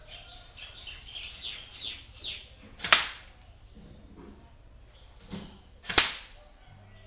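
Dboy BY-805T SCAR-H airsoft electric rifle firing two single shots about three seconds apart, each a sharp crack.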